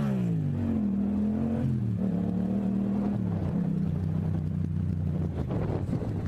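Motorcycle engine running close to the mic, its pitch rising and dropping with throttle and gear changes, then settling to a steady lower note about three seconds in.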